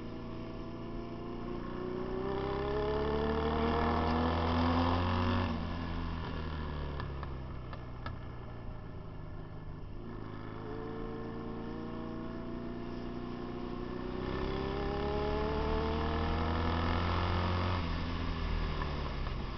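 Motorcycle engine on a dirt track, likely the vintage Royal Enfield-built Indian Trailblazer carrying the camera, accelerating hard twice with its pitch climbing steadily. Each run ends with a sudden drop in pitch as the throttle is closed for the turn.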